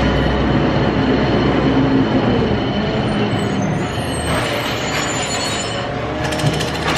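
Wood lathe running while a bowl gouge cuts a spinning American sweetgum bowl blank: a steady motor hum under the rough noise of the cut, turning more broken and scratchy near the end.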